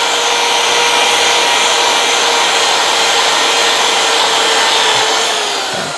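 Electric drill with a 4 mm bit running at a steady high speed, drilling out a rivet on a throttle body housing. The motor whine holds one pitch, then sags and winds down near the end as the rivet gives way.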